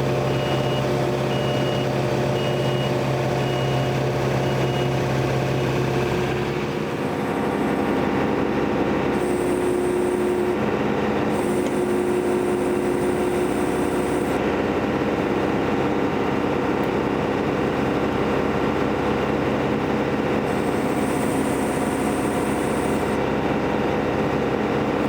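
John Deere 485A backhoe's engine running steadily under work, its pitch shifting to a new speed about six and a half seconds in. A faint repeating high beep sounds over it in the first few seconds.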